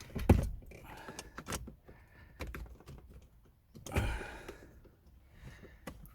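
Clicks, rattles and knocks of a replacement car ignition switch being handled and worked back into its fitting, with two louder knocks, one near the start and one about four seconds in.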